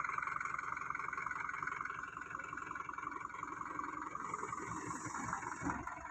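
Heavy diesel engine running steadily with a fast, even chatter, with a few low knocks shortly before the end.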